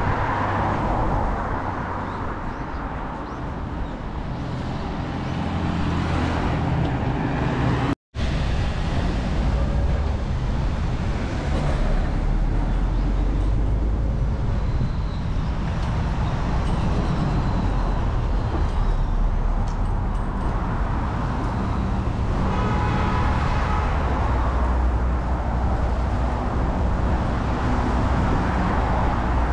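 City street traffic: cars and buses driving past with a steady low rumble, and a brief engine whine about two-thirds of the way through. The sound drops out for an instant about eight seconds in.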